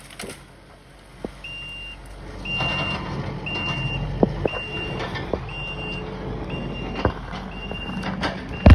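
Backup alarm beeping steadily about once a second over a heavy vehicle's engine running, which grows louder a couple of seconds in. A few clicks, and a loud sharp knock near the end.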